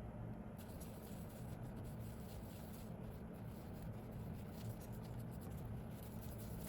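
Light, fine scratching and rubbing of close-up hand work on small parts, starting about half a second in, over a steady low hum.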